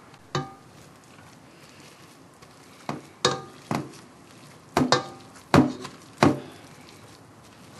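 Potato masher mashing boiled potatoes in a metal cooking pot: about eight irregular knocks as it strikes the pot, several with a short metallic ring.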